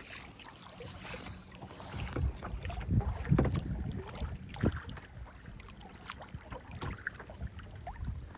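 Moving boat on open water: a rough, low rumble of water and hull noise with wind buffeting the microphone, strongest in a few gusts around the middle.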